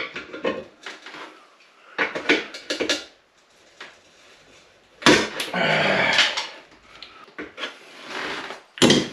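Hand tool knocking and scraping against a corroded basin waste under a ceramic basin, in irregular metallic clinks. There is a longer scraping, rattling stretch about five seconds in and a sharp knock near the end.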